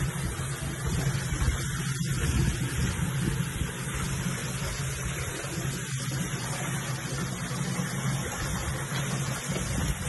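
A steady low mechanical hum under a constant rushing noise.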